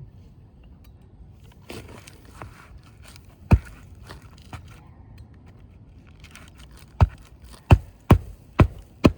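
Scraping and crackling of a tightly sealed asphalt shingle being worked loose, with one sharp knock about three and a half seconds in. From about seven seconds in, a run of loud, sharp strikes, about two a second, as a tool is driven under the shingle to break its seal.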